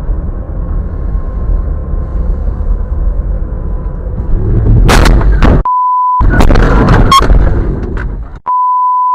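Steady rumble of a vehicle driving, then about five seconds in a very loud sudden noise. The noisy stretch is cut twice by a censor bleep, a steady pure beep with all other sound muted, the second one near the end.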